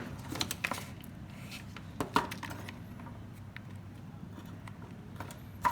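Scattered light clicks and taps from handling a soldering gun and its solder wire, with a sharper tap about two seconds in and another near the end.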